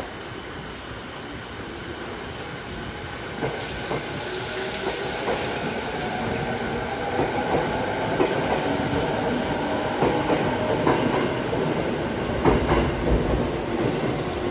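Izu Kyuko 3000 series electric train pulling away from the platform, its noise growing steadily louder as it picks up speed, with a steady motor whine and wheels clicking over rail joints.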